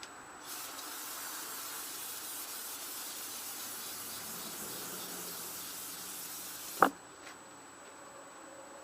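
Aerosol can of carburetor cleaner spraying in one steady hiss for about six seconds onto the Tecumseh engine's head area, ending with a sharp click.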